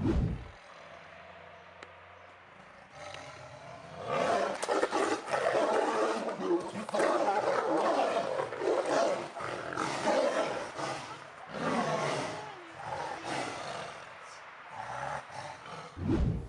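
A wild animal's rough, growling calls, starting about four seconds in after a quieter stretch and repeating with short breaks.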